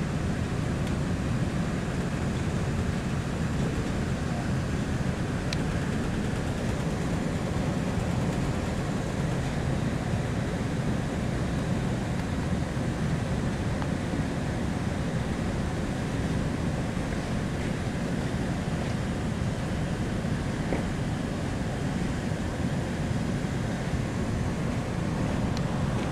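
Steady wind buffeting and the wash of the sea heard from a large ship's deck, with a constant low rumble and no change in level.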